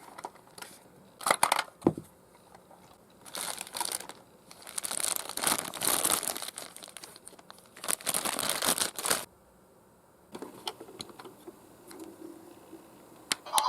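Toy car packaging being handled and opened: a few sharp clicks, then bursts of crinkling and tearing from about three to nine seconds in, then lighter rustling and clicks.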